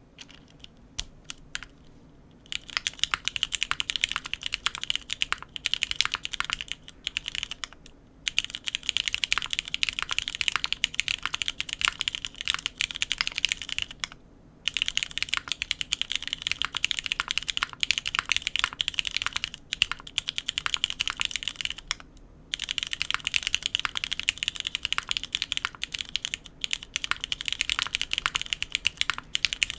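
Typing on a JJWKB Cloudline V2 custom mechanical keyboard with lubed Cherry MX Black linear switches, GMK keycaps, an aluminium plate, an O-ring mount and no foam. A few scattered keystrokes are followed by fast, dense runs of key clacks, broken by brief pauses every few seconds.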